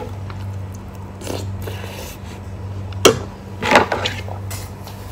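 Someone eating crispy oat cereal with a spoon from a bowl: spoon sounds against the bowl and chewing, with a sharp knock about three seconds in, over a steady low hum.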